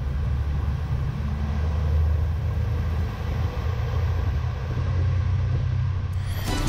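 Princess S65 motor yacht running at high speed: a steady low rumble of its twin diesel engines and the hull pushing through the water. Near the end a short rising whoosh cuts in.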